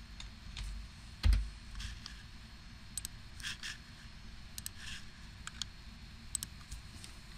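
Scattered clicks from a computer mouse and keyboard, irregularly spaced, with one louder dull knock about a second in.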